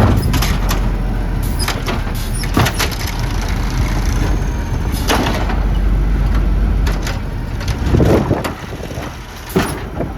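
Garbage truck running with a steady low engine rumble, broken by repeated sudden metallic clanks and bangs, the loudest about eight seconds in; wind rumbles on the microphone.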